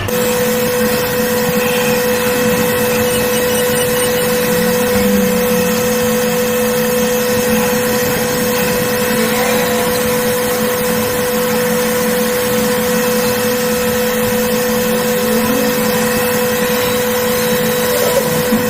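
CNC machining centre running with its spindle turning an edge finder at 500 rpm: a steady mechanical hum and hiss with a constant tone through it.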